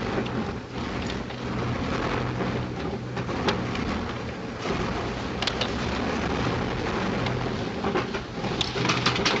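Steady drone and rush of a Wellington bomber's engines and slipstream.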